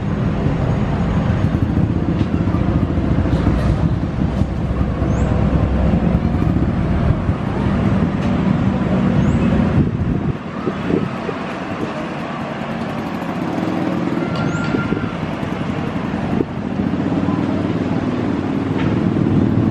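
Steady outdoor city din of road traffic and a busy station, with a heavy low rumble that drops away about halfway through.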